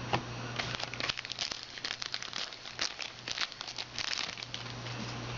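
Crinkling of a trading-card pack wrapper being handled, a quick run of small crackles that starts about half a second in and dies away near the end.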